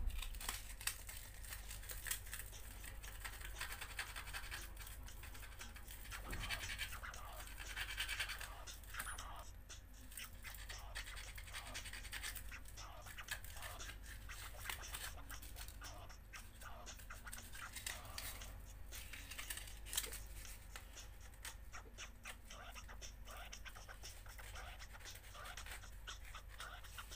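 Faint, irregular scratching and rubbing of hands working a small plastic lure body made from a toothbrush handle, with a sharp click right at the start and another about two-thirds of the way through.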